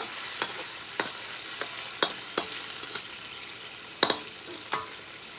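Food sizzling as it is stir-fried in a pan, with about half a dozen sharp clicks of a utensil striking the pan, the loudest about four seconds in.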